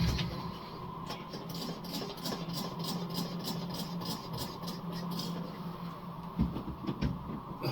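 Soldering-station cleaning sponge being wetted with water: a quick run of soft ticks, about four a second, for some four seconds over a low steady hum, then a couple of dull knocks near the end.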